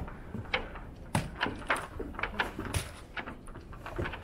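Irregular short knocks and scuffs of footsteps on the walkway, with snatches of nearby people's voices.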